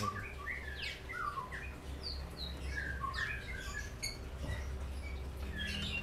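White-rumped shamas chirping and calling: short, varied whistled notes, some rising and some falling, scattered throughout, over a low steady hum.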